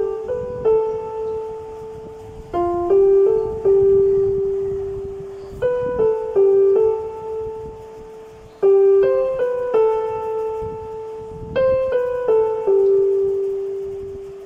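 Background music: a slow piano melody of struck notes that ring and fade, with a new phrase beginning about every three seconds.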